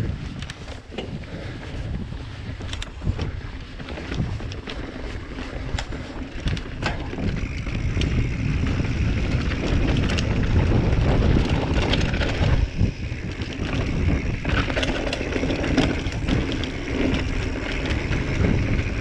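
A full-suspension mountain bike (Giant Trance 3) descending a dirt trail: tyres rumbling over the ground, with wind buffeting the microphone and frequent knocks and clatter from the chain and frame over bumps. It gets louder about eight seconds in as the speed picks up.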